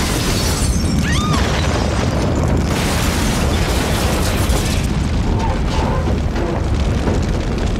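Film sound effect of a car explosion: a loud, sustained blast of the fireball going up, running on into the noise of the burning wreck.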